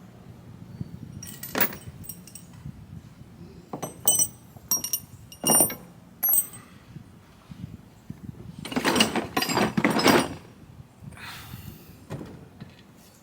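Loose metal engine parts being handled: several sharp metallic clinks that ring briefly, then a louder run of clattering and scraping about two-thirds of the way through.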